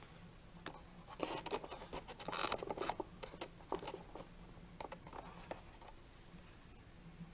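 Scratchy rustles and light clicks of a toy's cardboard box with a clear plastic window being handled, busiest in the middle and dying away after about five and a half seconds.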